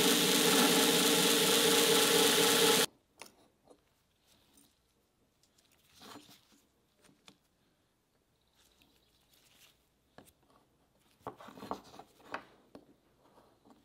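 Belt grinder running with a small steel block pressed against the abrasive belt: a loud, steady grinding that cuts off suddenly about three seconds in. Then only faint clicks and taps, with a small cluster near the end, as a steel caliper and the block are handled on a wooden bench.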